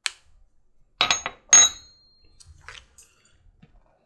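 Metal tools clinking as they are handled and set down on a workbench: a sharp click, then a quick clatter of several knocks about a second in, one leaving a short ringing tone, and a few fainter taps after.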